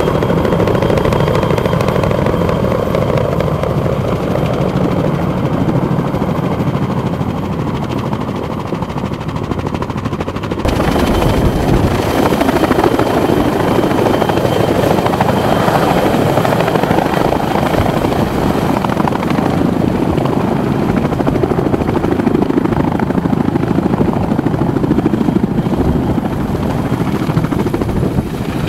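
Boeing Vertol CH-46 Sea Knight tandem-rotor helicopters running close by: steady rotor and turbine noise. About ten seconds in the sound changes abruptly and becomes louder and fuller as the helicopters hover and set down.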